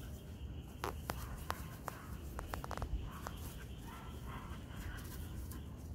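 A husky and a Pomeranian playing on grass: scattered light clicks and rustling as they tussle and settle, with no barking.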